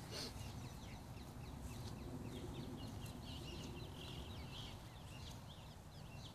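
Birds chirping faintly, many short repeated calls, over a low, steady background rumble.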